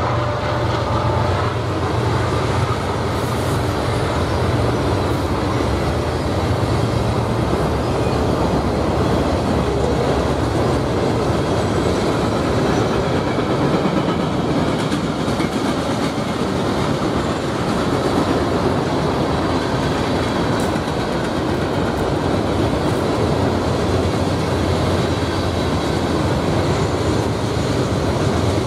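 A freight train's cars rolling past at speed: a steady rumble with wheels clicking over the rail joints.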